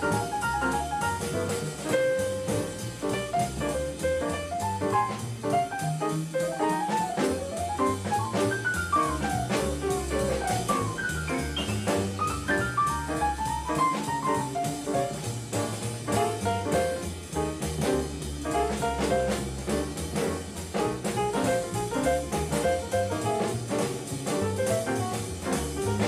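Small jazz combo playing bebop: a saxophone solos in fast runs of notes over piano, double bass and drum kit.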